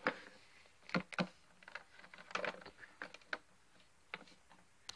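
Faint, irregular taps and clicks of small plastic Littlest Pet Shop figurines being handled and set down on a plastic toy set.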